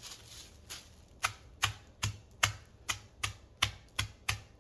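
Metal meat tenderizer pounding saltine crackers in a plastic bag on a folded towel: a run of about ten quick strikes, two to three a second, crunching the crackers into crumbs.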